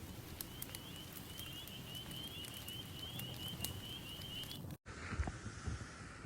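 Campfire crackling with irregular pops, and a thin high whistle of quick repeated notes running over it. About five seconds in the sound cuts out abruptly and switches to wind buffeting the microphone, with a few dull thumps.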